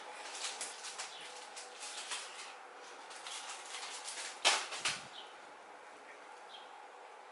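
Crinkling and rustling of plastic instant-noodle packets being handled, in quick irregular crackles, with two louder rustles about four and a half seconds in; a faint steady hum lies underneath.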